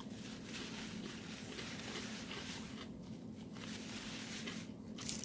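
Quiet indoor room sound: a steady low hum under a faint hiss, with a brief soft noise at about five seconds.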